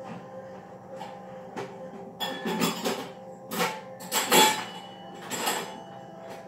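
Things being knocked and shifted about while someone rummages through a kitchen pantry: about six short knocks and clatters at uneven intervals, the loudest about four seconds in, over a faint steady hum.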